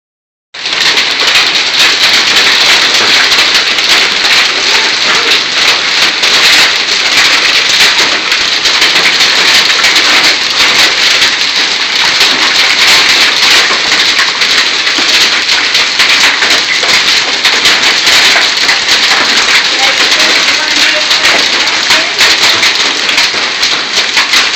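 Hailstorm: hailstones pelting down heavily and steadily, a dense clatter of countless small impacts.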